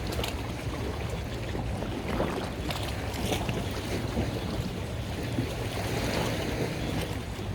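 Wind buffeting the microphone over a steady rush of water, as from a small boat moving on the sea.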